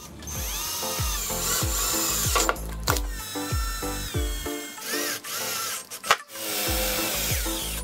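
Cordless drill with a 1/8 inch bit drilling pilot holes through the sheet-metal trunk lid of a Hyundai Elantra. Background music with a steady beat plays underneath.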